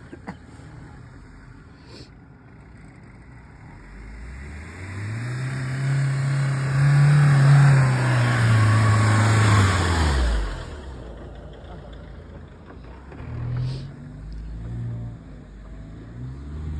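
Mahindra Scorpio SUV's diesel engine revving hard under load as it climbs a steep sandy rutted track and comes past. The note rises and grows loud in the middle, then drops in pitch and fades as the vehicle pulls away, running quieter near the end.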